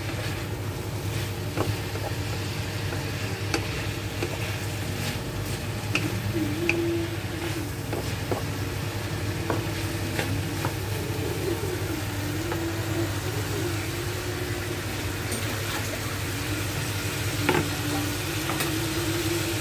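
Diced potatoes and vegetables sizzling in a wok while a spatula stirs them, with scattered clicks of the spatula against the pan.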